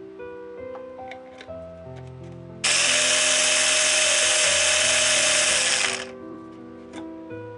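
An electric kitchen appliance motor running loudly for about three seconds, switched on sharply a couple of seconds in and cut off about six seconds in, with a steady whirring hum over a hiss. Soft background music plays throughout.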